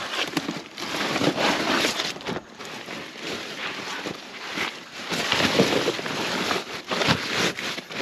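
Soaked cardboard being crumpled and pressed down by hand into a worm bin, with irregular rustling and scraping.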